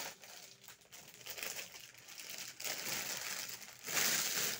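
Large printed plastic wrapper of an Easter egg crinkling as it is handled and shaken out, in uneven surges, loudest near the end.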